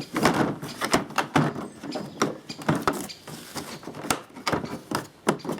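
Objects being handled and moved about: an irregular run of knocks, clicks and clattering.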